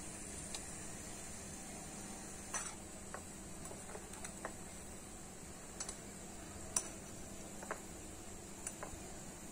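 Oil sizzling faintly as small bread gulab jamun balls deep-fry in a miniature aluminium pot, with scattered sharp clicks and ticks as a tiny slotted spoon turns them.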